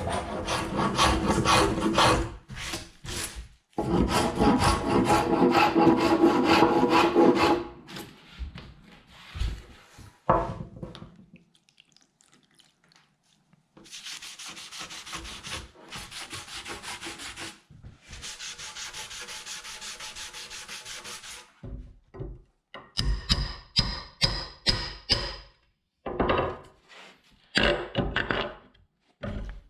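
Hardwood boards being worked and handled: long stretches of wood scraping and rubbing on wood, then a run of quick knocks and short scrapes in the last third.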